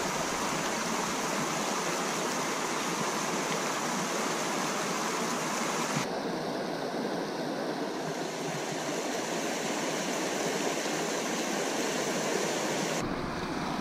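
Steady rush of flowing river water, an even noise with no distinct events; its tone changes abruptly about six seconds in and again near the end.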